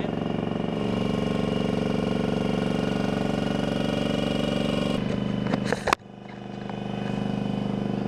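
Engine of a towable boom lift running steadily while the boom raises the work basket. Around five to six seconds in there is a short clatter, then the sound drops out briefly and builds back up.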